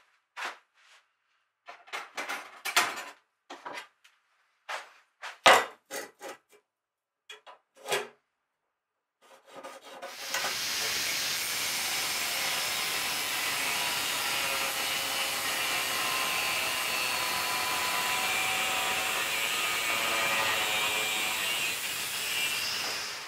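A few scattered knocks and clicks as a metal flat bar is handled on the bench. Then, about ten seconds in, an angle grinder with a cutting disc starts cutting through the steel bar and throwing sparks, a steady whine with a hiss that runs for about thirteen seconds before it stops.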